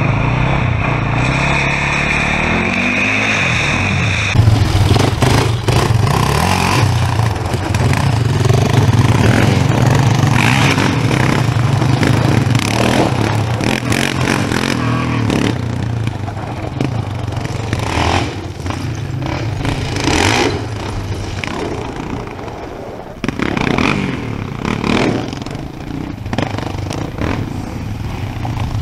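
Quad bike (ATV) engines running and revving on a loose stony dirt track, with a rising rev about a second in and scattered knocks from the ground; the engines grow fainter in the second half.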